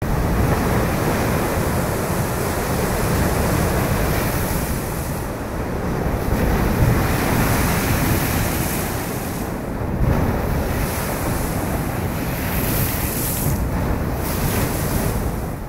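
Sea waves breaking and spraying over shoreline rocks, a continuous wash of surf, with wind buffeting the microphone.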